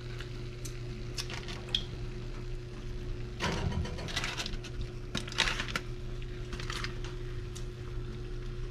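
Aluminum foil crinkling in short bursts as a hand opens and folds back a foil packet, the largest bursts a few seconds in. A steady low hum runs underneath.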